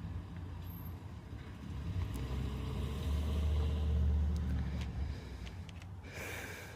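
2010 Ford F-150's 5.4-litre V8 running, its rumble rising for about two seconds and easing back down. A short burst of hiss comes near the end.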